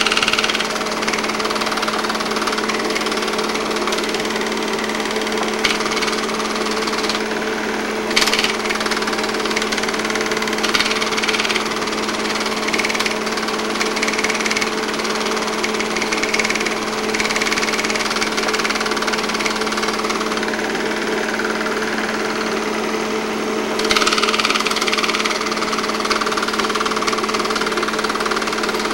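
8mm film projector running: a steady motor hum with two held tones under a fast, even mechanical rattle from the film transport.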